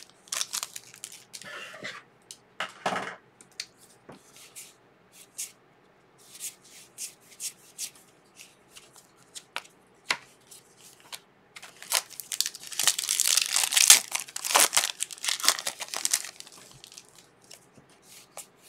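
Foil trading-card pack wrapper crinkling and cards being slid and thumbed through by hand: scattered crackles, with a denser, louder stretch of rustling past the middle.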